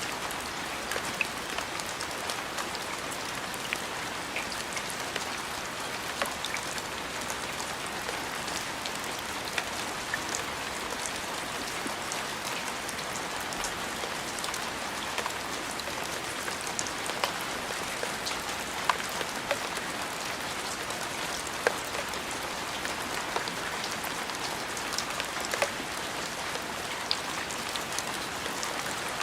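Steady rain falling, with many sharp ticks of single drops scattered through it.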